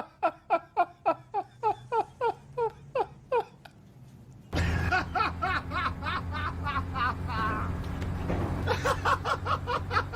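Laughter: a quick, even run of about four 'ha's a second that fades away over the first three and a half seconds. After an abrupt cut about four and a half seconds in, more laughing follows over a steady low hum.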